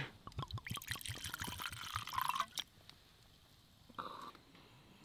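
Bourbon glugging and splashing out of the bottle into a mug for about two and a half seconds, the pitch rising briefly as it fills, then stopping.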